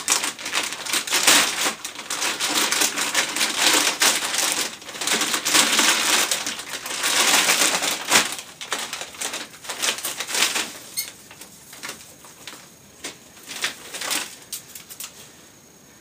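A plastic bag of dry ice crinkling and crunching as the ice inside is handled and broken up. Dense crackling runs for about the first eleven seconds, then thins to scattered clicks.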